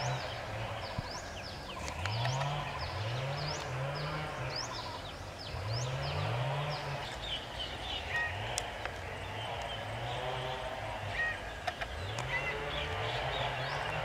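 Scaly-breasted munias calling: many short, high, thin chirps scattered throughout. Under them a louder, low-pitched sound repeats, each note rising and then falling, about once a second.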